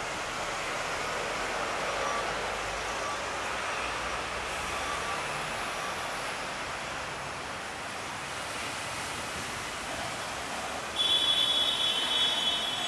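Steady city street traffic with a Hong Kong tram running on its street rails. About eleven seconds in, a loud, steady, high-pitched squeal of steel wheels on rail starts suddenly and lasts about a second.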